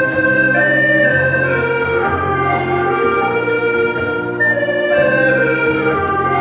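Ensemble of hulusi (Chinese gourd flutes) and a transverse bamboo flute playing a slow melody in several parts, the held reedy notes stepping downward over a steady low drone.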